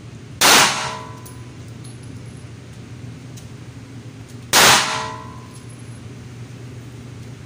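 Two shots from a Rock Island Tactical 1911 pistol in 9mm, about four seconds apart, each followed by a short ringing tail, over a steady low hum.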